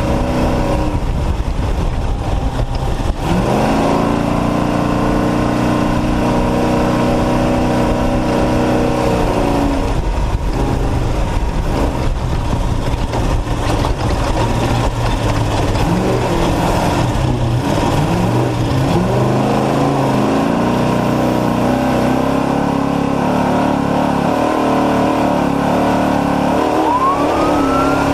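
Off-road race truck's engine under hard load, revs climbing about three seconds in, holding, then dropping, rising and falling unevenly, and settling into a steady pull for the last stretch. A brief rising whistle sounds near the end.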